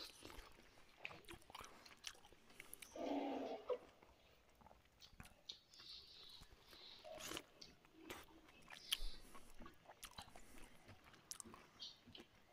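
A person chewing a mouthful of rice and curry, with small wet mouth clicks and smacks scattered through, and a brief louder low sound about three seconds in.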